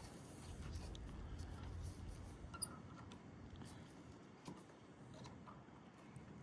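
Faint, scattered clicks and scrapes of a Torx T20 screwdriver working on the starter motor's solenoid screws, over a low steady hum.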